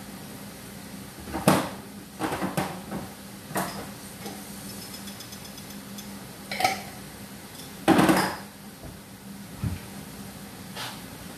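Kitchenware clattering: containers and utensils knocked and set down against pots, pans and the counter in about half a dozen irregular knocks, the loudest and longest near the end, over a steady low hum.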